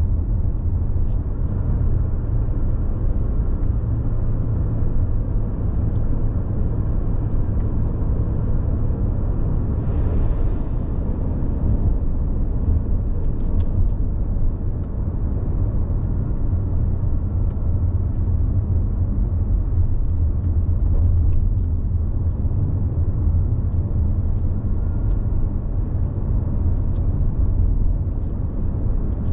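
Steady low rumble of a car driving, heard from inside the cabin: engine and tyre noise on a country road, with a few faint clicks and a brief hiss about ten seconds in.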